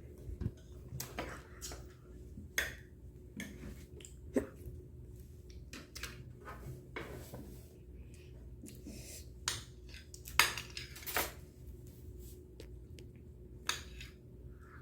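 Spoon clinking and scraping against a dish of ice cream in irregular taps, with a sharper clink about four seconds in and another about ten seconds in.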